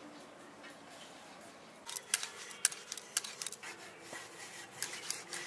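Faint background, then from about two seconds in a run of light, sharp, irregular clicks and clinks: glass or metal bangles knocking together on hands rolling rice-flour dough into chushi pitha strands.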